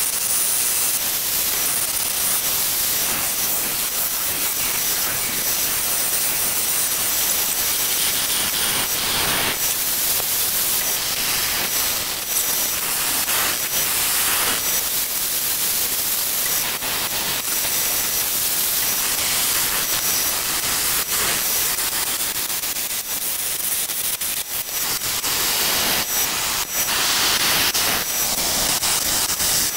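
Wood lathe with a hand-held turning tool cutting into a spinning red mallee burl bowl blank, a steady hiss of wood being cut, with scattered short ticks.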